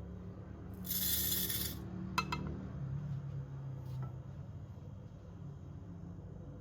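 Kitchen handling sounds: a hiss lasting about a second, then a single sharp clink of tableware that rings briefly, and a faint tap a couple of seconds later, over a low steady hum.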